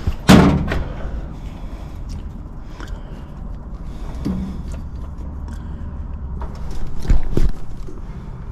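A loud metal clatter about a third of a second in as the condenser's fan-and-grille top is set down, then the rustle and light knocks of hands moving wiring inside the unit, with two louder knocks near the end. A steady low hum runs underneath.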